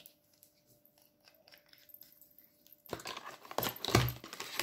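Cardboard and paper packaging being handled: faint small clicks at first, then from about three seconds in a loud run of rustling and scraping as a small product carton is handled over the cardboard shipping box.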